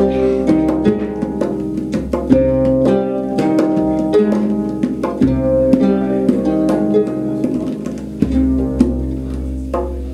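Oud and concert harp playing a plucked melody together, a run of notes that each ring and fade, with strokes on a hand drum.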